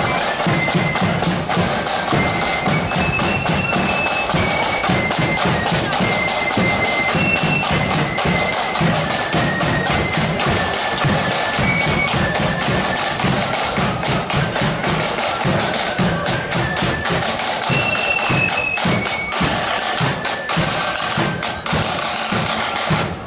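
Marching flute band playing a tune: a high flute melody over rapid snare drum rolls and steady bass drum beats.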